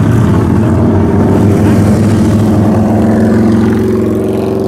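Motorcycle engines running as bikes ride slowly past at low speed, a steady low engine sound whose pitch rises slightly in the second half as one throttles up.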